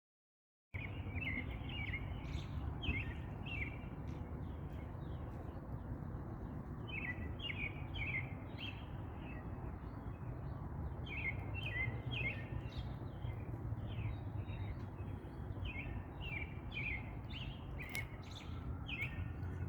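Small bird chirping: many short, high, falling chirps in quick runs, over a steady low rumble of outdoor background noise. The sound cuts in abruptly just under a second in.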